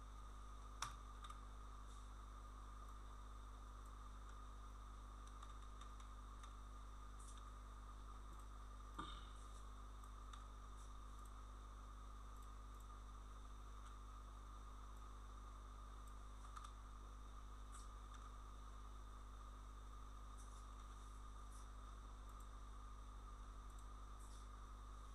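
Near silence: a steady electrical hum and faint hiss, broken by a few faint clicks from the computer being worked, the clearest about a second in and about nine seconds in.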